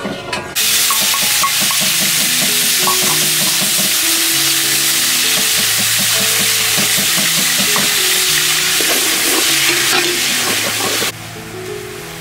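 Hot oil sizzling hard in a large cooking pot as chili paste and palm sugar fry in it. It starts abruptly about half a second in and cuts off suddenly near the end, with soft background music underneath.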